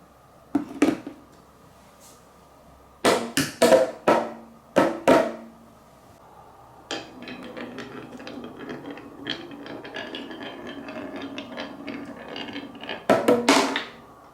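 Balls on a wooden marble run: a few sharp clacks as they drop and strike the wood, then, about seven seconds in, a long continuous rattling roll along the rails that ends in a quick cluster of knocks.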